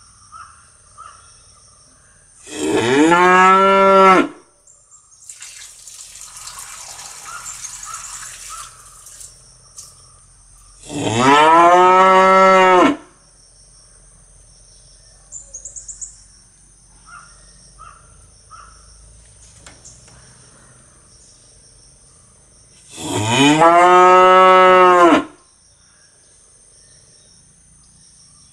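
Cow mooing three times, several seconds apart. Each moo lasts about two seconds, rising in pitch at the start and then held steady.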